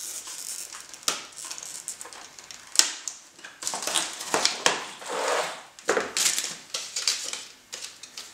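Packaging being torn open and handled: irregular crinkling, rustling and scraping, with a single sharp snap about three seconds in.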